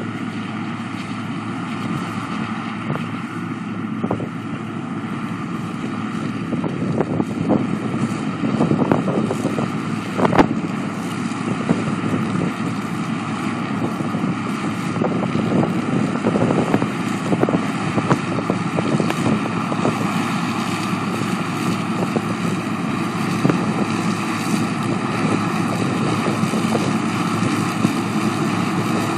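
Massey Ferguson 27 combine harvester running steadily while harvesting corn, with wind buffeting the microphone and a sharp knock about ten seconds in.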